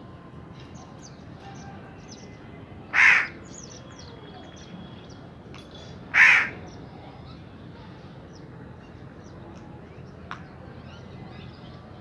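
A crow cawing twice, two short loud caws about three seconds apart.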